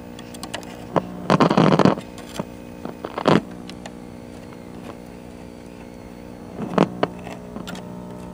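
Steady buzzing hum from a 1974 Wards Airline portable color tube TV's speaker, with no program sound: a slight hum that sounds like the vertical deflection more than anything, the set showing signs of a dead tuner or IF. Loud crackling bursts break in about a second and a half in, again just after three seconds and near seven seconds, among scattered clicks.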